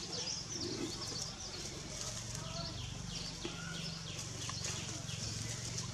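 Many short, high chirps that fall in pitch, several a second, over a low steady hum.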